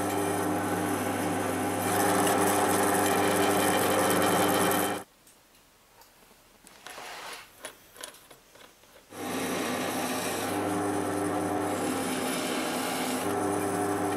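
Drill press motor running with the grating cut of a twist bit drilling through a steel plate, louder from about two seconds in. About five seconds in the sound stops abruptly, leaving only a few faint clicks and taps, and a little after nine seconds the press runs and drills again.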